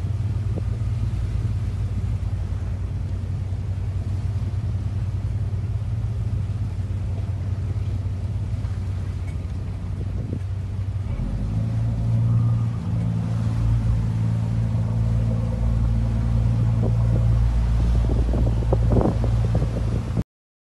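Motorboat engine running with a steady low hum. About eleven seconds in the engine note grows louder and fuller, and the sound cuts off suddenly near the end.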